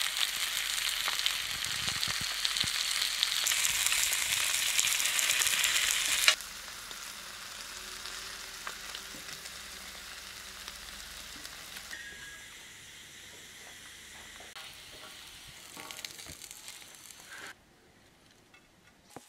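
Côte de bœuf frying on a hot pan: a loud, steady sizzle that cuts off sharply about six seconds in. A softer sizzle follows and fades lower until it drops away near the end.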